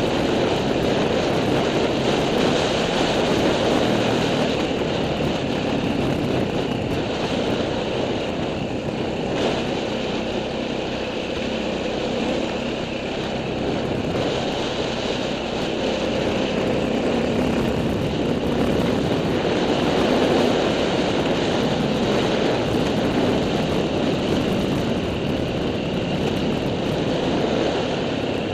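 Off-road vehicle's engine running at a steady pace while riding a dirt trail, under a constant rush of wind noise.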